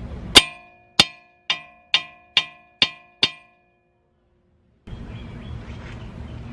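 Hammer striking a broken wheel lug stud to drive it out of the hub: seven sharp metallic clangs, each ringing briefly, about two a second.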